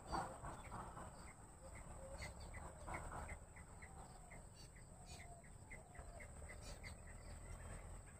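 Jungle bush quail calling: a run of short, evenly spaced notes, about two to three a second, starting about two seconds in.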